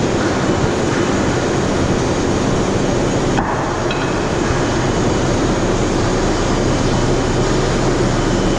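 Overhead crane running steadily with a low hum as it carries a steam turbine's upper inner casing, under constant industrial hall noise.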